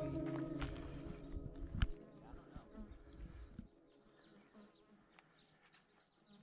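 The last held notes of a song fade out in the first second, leaving faint outdoor sound with a buzzing insect. One sharp click comes about two seconds in, and the second half is very quiet.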